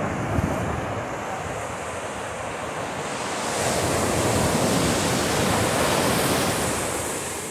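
Ocean surf on a beach: a wave's rush of noise swells about three seconds in, holds, and fades near the end, with some wind noise on the microphone.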